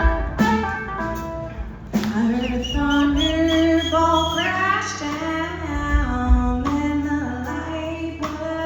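Live blues-rock band playing: a woman sings long held notes with vibrato over guitar, bass and drums.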